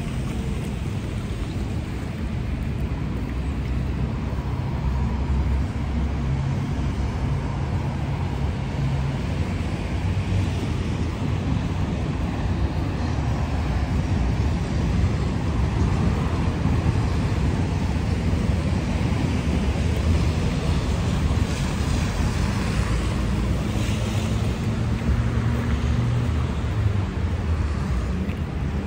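Steady road traffic noise from cars passing on a wide avenue, with engine hum rising and fading, and wind on the microphone.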